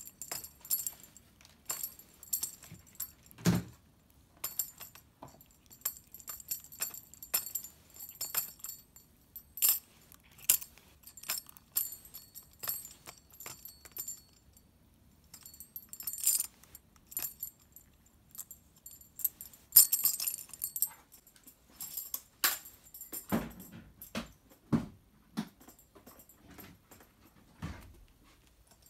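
Metal jingles of a yellow plastic half-moon tambourine rattling in irregular bursts as a Norwegian Forest Cat bites and paws at it. Toward the end there are a few dull knocks.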